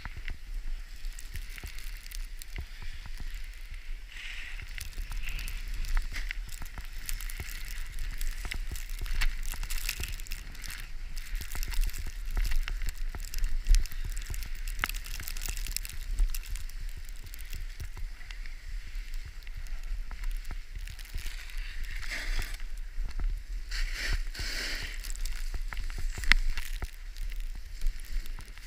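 Skis running and scraping over snow, with many short scrapes and a steady hiss, and wind rumbling on the microphone.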